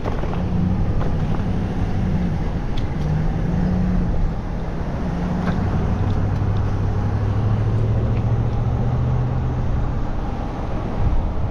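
City street traffic heard from a moving bicycle: a nearby vehicle engine runs with a low, steady hum that shifts pitch a few times, over wind and road rumble.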